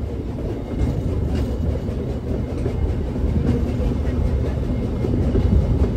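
Passenger car of a narrow-gauge park steam train rolling along the track: a steady low rumble with faint wheel clatter.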